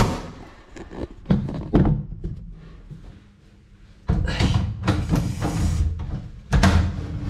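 Wooden knocks and thuds from a cabinet's loose front panel, which fell off when the cabinet was opened, as it is handled: a sharp knock at the start, two more soon after, then a stretch of clattering and rubbing with another sharp knock near the end.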